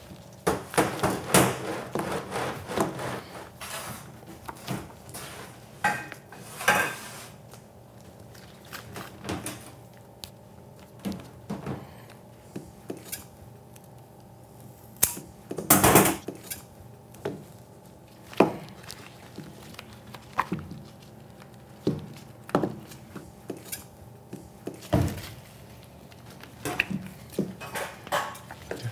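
Scattered clicks, taps and knocks of hand work on sugar candy: scissors snipping a candy rope and candy pieces being handled and set down on a hard worktable, with a few louder knocks among them. A faint steady hum lies underneath.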